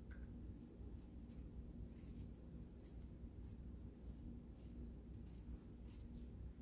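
Faint, irregular short scrapes of a kitchen knife blade peeling the skin off a raw potato, about two strokes a second, over a low steady hum.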